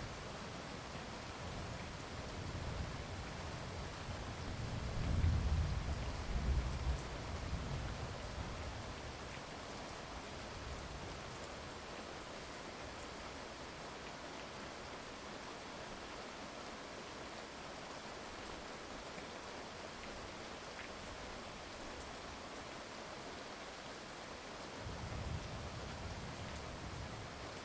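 Heavy rain falling steadily, with a long roll of thunder rumbling through the first several seconds, loudest about five to seven seconds in, and a shorter rumble of thunder near the end.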